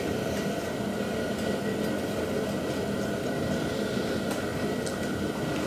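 Steady hum of a shop heater's fan, with a thin, even whine over it. A few faint ticks come from the piston ring being fitted into the iron cylinder bore.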